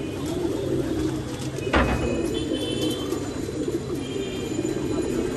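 A flock of racing pigeons cooing continuously in their loft, with a single sharp knock a little under two seconds in.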